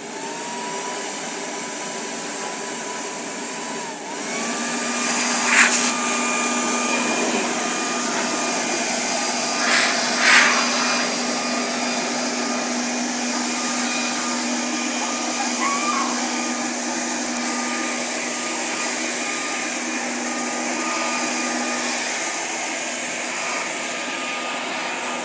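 Corded electric leaf blower running, a steady rushing whine as it blows powder snow off a car. It spins up at the start, its whine dips and settles a little higher about four seconds in, and there are two brief louder bursts around five and ten seconds in.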